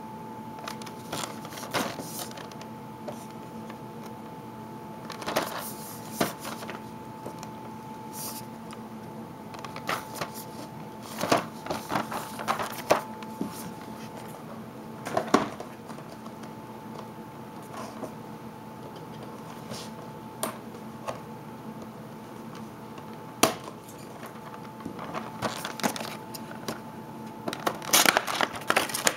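Action-figure box of cardboard with a clear plastic window being handled: scattered taps, clicks and rustles, becoming a dense crackle of plastic packaging near the end as the box is opened. A steady low hum runs underneath.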